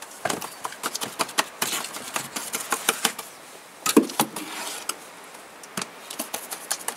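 Bricklaying: a steel trowel scraping and tapping on bricks and mortar. Irregular clicks and taps, with a louder knock about four seconds in.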